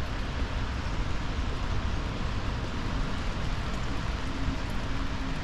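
Steady rush of rain falling outdoors, with an uneven low rumble underneath.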